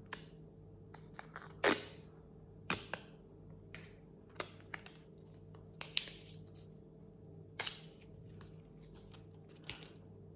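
AirPods packaging and case being handled by hand: a dozen or so sharp, irregular plastic clicks and snaps, with a louder one about two seconds in.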